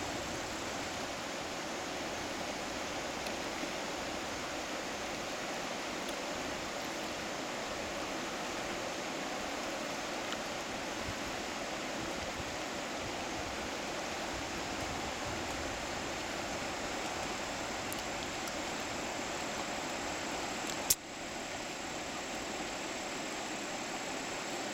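River water running over rocks and shallow riffles: a steady rush. A single sharp click near the end, with a brief dip in the sound after it.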